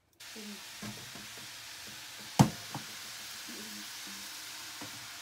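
Murukku dough frying in hot oil in a kadai: a steady sizzling hiss from the oil bubbling hard around the freshly dropped dough, which is still cooking off its moisture. A sharp knock about two and a half seconds in, and a few lighter taps.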